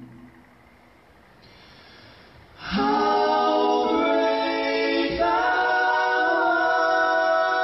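A cappella vocal group singing sustained chords in close harmony. The voices come in together after a short lull about two and a half seconds in, and the chord changes about five seconds in.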